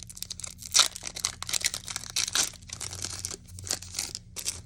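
Foil Pokémon TCG booster pack being torn open and crinkled in the hands: a quick run of irregular rustling tears, the sharpest about a second in, stopping near the end.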